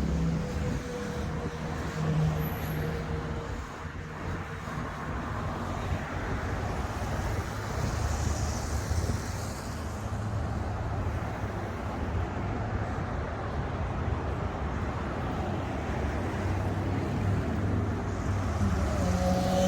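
City street traffic: cars driving past with a continuous rumble of engines and tyres. Near the end a louder vehicle engine hum comes in.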